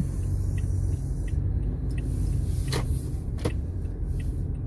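Car cabin road noise while driving on a wet road: a steady low rumble from the engine and tyres, with a rise in tyre hiss through the middle. Two short sharp clicks come about three seconds in.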